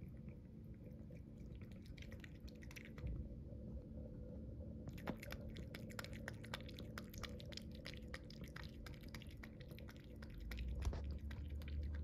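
SOOFPET stainless-steel cat water fountain running, its pump giving a faint steady hum under the trickle of its spout stream. Over it a cat laps water in quick runs of small wet clicks, a short run early and a longer one from about five seconds in.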